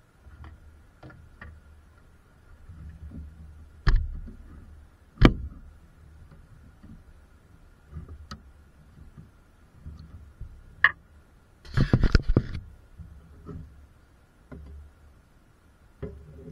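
Tools and car parts being handled: scattered sharp clicks and knocks, with a short rattling clatter about twelve seconds in, over a faint steady high hum.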